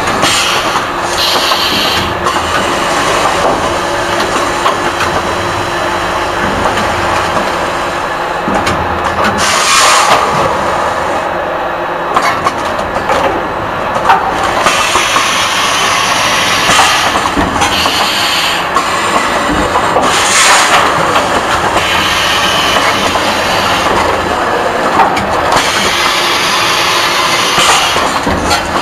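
Fully automatic pet-food bag-filling and sealing machine running, with a steady mechanical clatter. Several short bursts of air hiss from its pneumatic cylinders break through at uneven intervals.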